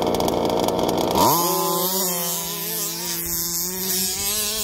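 Two-stroke petrol engines of large-scale RC cars running rough and low. About a second in, one revs sharply up and holds a steady high pitch that wavers slightly.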